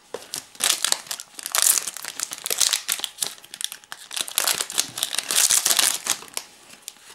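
Foil trading-card booster-pack wrappers crinkling as they are handled, with two louder stretches, about a second and a half in and again around five seconds in.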